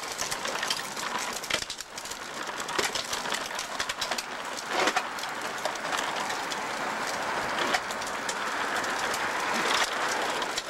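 Hard wheels of a ride-on toy tractor and its trailer rolling over rough asphalt, a continuous gritty rattle and crunch that grows louder in the second half.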